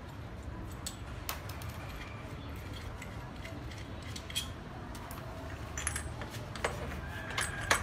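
Scattered metal clicks and clinks of brush-cutter parts and tools being handled during assembly, with a cluster of sharper clinks and a brief ringing one near the end.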